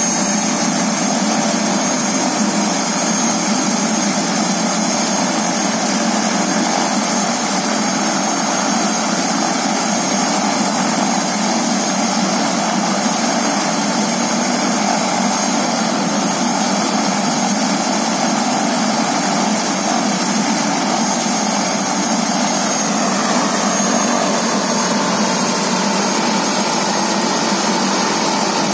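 Turbine helicopter running on the ground with its main rotor turning: a loud, steady turbine whine over the rush of the rotor blades.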